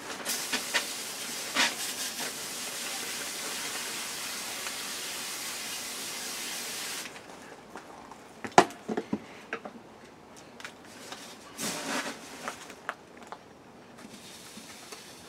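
Water spraying from a garden hose nozzle into a hydroponic bucket of perlite, a steady hiss for about seven seconds that stops abruptly. A few sharp knocks follow, then the short rustle of perlite being scooped near the end.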